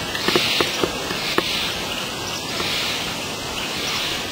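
Steady woodland background hiss that swells and fades in soft waves, with a handful of small sharp clicks or snaps in the first second and a half.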